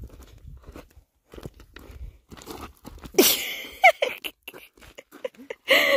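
Footsteps crunching over dry twigs and brush, with a string of short crackles. About three seconds in comes a loud cry that slides in pitch, and another loud cry near the end.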